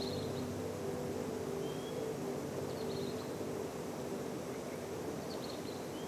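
Outdoor ambience: a steady rush from a nearby stream, with short high bird chirps every second or two and a faint low hum of steady tones underneath.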